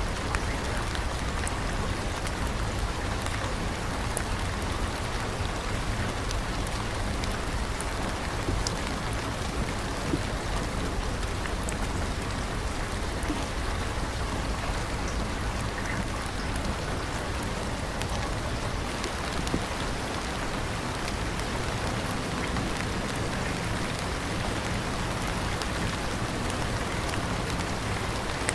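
Steady rain falling on surfaces, a constant hiss with scattered tiny drop ticks.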